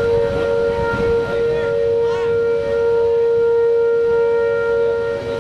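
Outdoor tornado warning sirens sounding a steady wail, two held tones close in pitch, over a low rushing noise.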